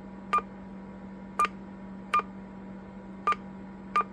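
Key beeps from a Stryker SR-447HPC2 CB radio as its front-panel buttons are pressed to step through the display colour settings: five short, high beeps at uneven intervals over a steady low hum.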